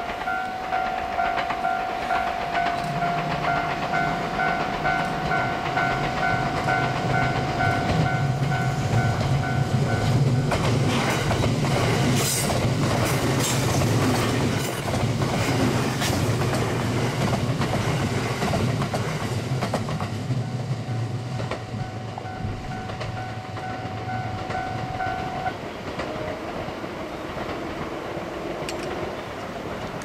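Level crossing warning bell dinging rapidly while the 285 series Sunrise Izumo sleeper electric train approaches and passes close by, its running hum and wheel clicks over the rail joints loudest in the middle. The crossing bell stops a few seconds before the end as the train clears.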